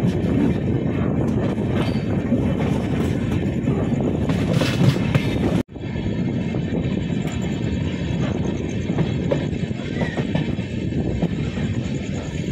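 Passenger train running along the track, a steady rumble of wheels on rails. A little past halfway the sound cuts out for an instant, then the running noise resumes.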